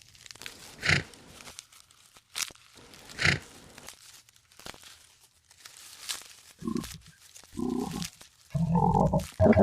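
Giraffe sounds: two breathy snorts, then a few short low grunts near the end that grow louder, with scattered clicks in between.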